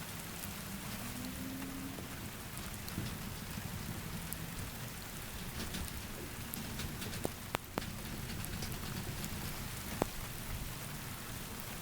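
Steady rain falling and pattering on surfaces, with a few sharp drip taps in the second half.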